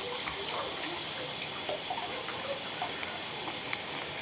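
Water running steadily from a bathtub tap.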